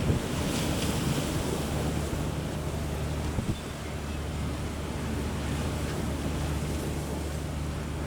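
Strong wind buffeting the microphone over rough harbour waves, with a steady low engine hum underneath.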